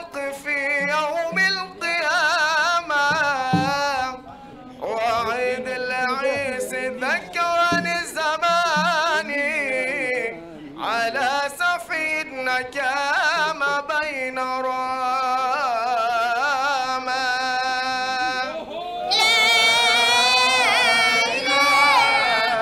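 Unaccompanied devotional chanting in maulid style: a solo voice sings long, ornamented phrases with heavy vibrato, pausing briefly between lines. About three-quarters of the way through it becomes louder and fuller.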